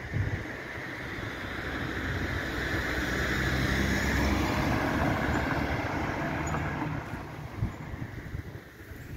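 A car driving past on the street, its tyre and engine noise swelling to loudest about four seconds in and then fading away.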